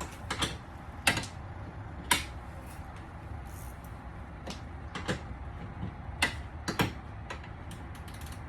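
Scattered sharp metal clicks of a small wrench working a nut up inside a car door panel, about nine at an uneven pace.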